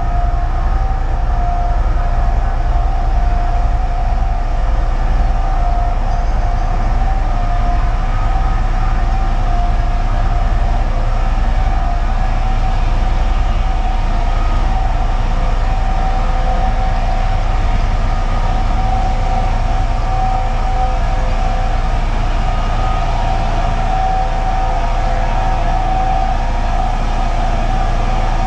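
Steady industrial noise from nearby petrochemical development: a constant low rumble with a steady droning whine above it, loud and unbroken.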